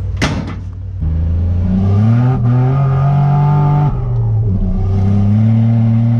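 Nissan Navara's VG30 V6 engine pulling under acceleration, its note rising in pitch, dropping briefly about four seconds in, then rising again.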